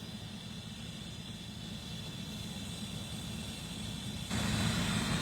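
Steady low engine rumble with a faint high whine, growing louder about four seconds in.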